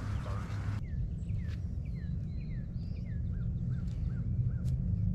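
A songbird calling a quick run of short down-slurred notes, starting about a second in and dropping to a lower pitch partway through, over a steady low rumble.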